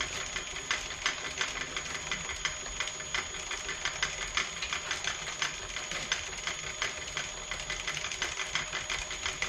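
Milling machine running with its end mill spinning but not yet cutting: a steady mechanical hum with fast, irregular ticking from the drive.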